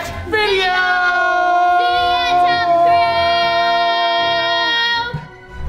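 Several voices, children and adults together, shouting one long held note in unison for about four and a half seconds, then breaking off near the end.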